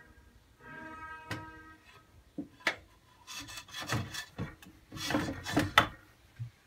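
Glass pot lid, gripped in a cloth towel, being lifted off the pot and set down: a few sharp clinks and knocks with rubbing, scraping strokes of glass and cloth against metal.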